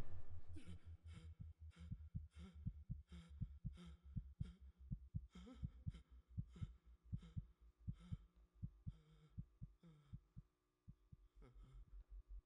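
Heartbeat sound effect in an animated film's soundtrack: low, regular thumps about two a second, which stop briefly a little before the end and then resume.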